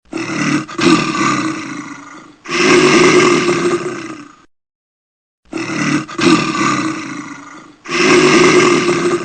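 A large animal roaring: two rough calls of about two seconds each, a pause of about a second, then two more.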